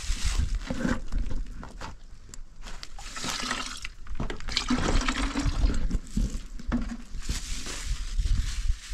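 Water splashing and sloshing in uneven surges.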